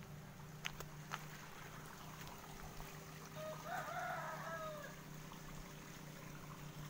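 A rooster crows once, a single call of about a second and a half beginning about three and a half seconds in, over a steady low hum. Two sharp clicks come about a second in.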